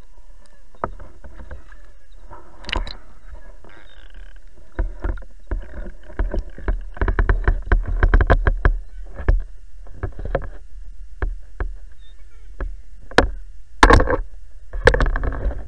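Water splashing and sloshing as a hooked carp is drawn into a landing net and thrashes in it, heard close on the microphone with quick sharp splashes and handling knocks that come thickest in the middle and loudest near the end, over a steady low rumble.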